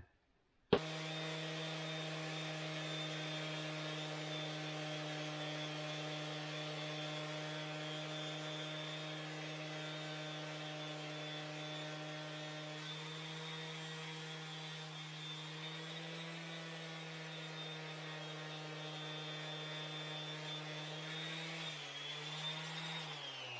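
Electric orbital sander switched on about a second in and running at a steady pitch while sanding a strip of wood. Its pitch dips slightly near the end.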